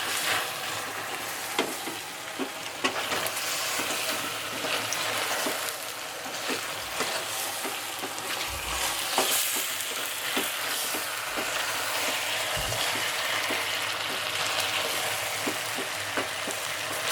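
Chicken sizzling in a frying pan as it is stirred, with the spoon scraping and knocking against the pan many times.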